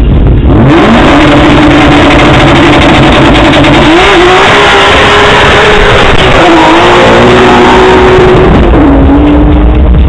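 Drag car launching from the start line about half a second in and accelerating hard down the quarter-mile strip: a very loud engine whose pitch climbs, holds, steps up again and drops back near the end.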